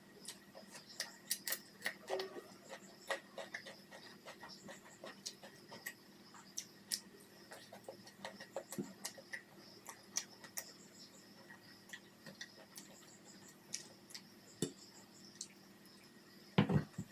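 Close-miked eating sounds: a person chewing food, with many irregular wet mouth clicks and smacks and a louder dull thump near the end.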